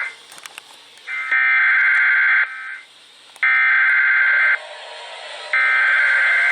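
Emergency Alert System SAME data header: three loud bursts of raspy two-tone digital warble, each just over a second long with about a second between them, the coded start of a new alert broadcast. A brief burst of the same warble sounds right at the start.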